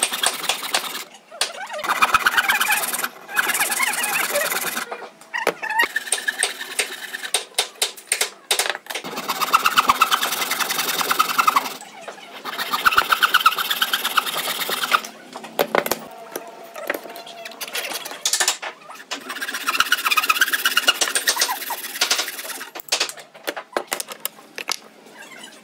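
Small handheld electric power tool cutting into a pine block, running in repeated bursts of a few seconds with short pauses between them.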